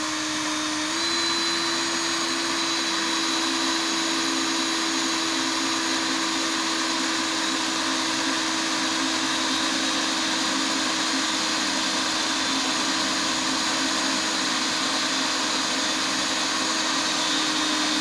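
Cordless drill with a small bit running steadily at one pitch, drilling out the burr side of a copper rivet in a stirrup leather; the pitch steps up slightly about a second in.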